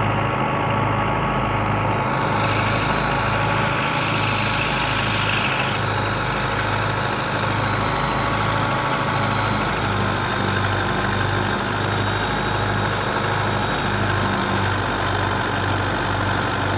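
Belarus 510 tractor's four-cylinder diesel engine running steadily under load while driving a wheat thresher, with a regular low throb and a steady whine.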